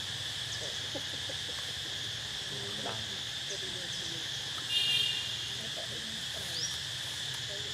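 Steady, high-pitched chorus of insects droning without a break, with one brief louder pitched call about five seconds in.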